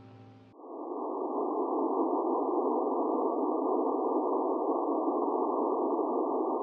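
A steady, muffled rushing noise with no high or low end, like filtered static, comes in about half a second in as the last of some music fades away, and holds level throughout.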